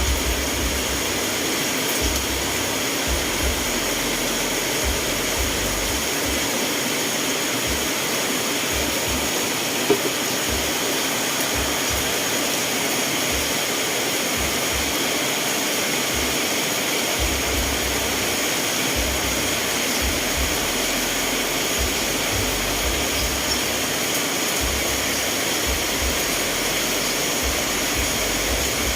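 Steady rainfall, an even hiss without let-up, with one sharp click about ten seconds in.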